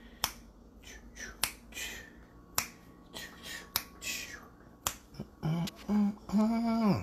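A steady run of sharp clicks, five in a row about one a second, with soft swishes between them. Near the end a voice sounds a few drawn-out notes, the last one falling away.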